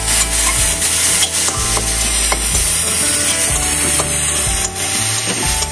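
Vegetables sizzling in a hot kadhai while a long metal spatula stirs and scrapes them against the pan, with scattered clicks of metal on metal.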